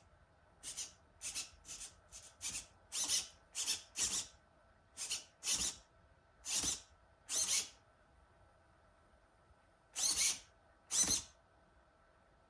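A run of short, sharp scraping squeaks from a hand tool working on an RC car's throttle linkage parts, about two a second for the first eight seconds, then two more after a pause.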